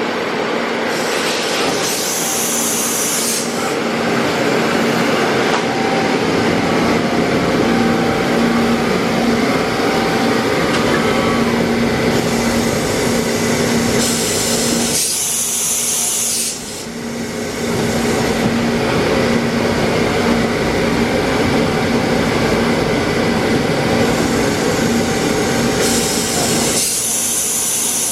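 Makino A51 CNC horizontal machining center running under power: a steady machine hum with a low tone, and a high hiss that comes and goes three times, about every twelve seconds. The level dips briefly about two-thirds of the way through.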